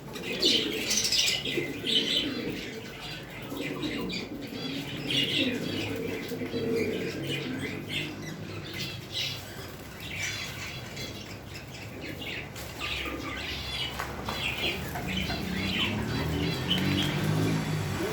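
A group of caged lovebirds calling, many short high-pitched chirps and squawks overlapping throughout.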